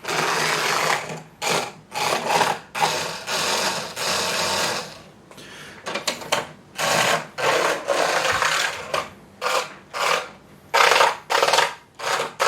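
Hot Wheels R/C 1:64 Nissan GT-R toy car's tiny electric motor whirring in repeated short bursts of throttle, starting and stopping about a dozen times.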